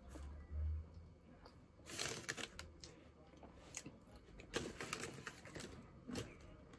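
Faint eating and handling noises close to the microphone: scattered soft clicks and short rustles as a sandwich is eaten, with a low thump about half a second in.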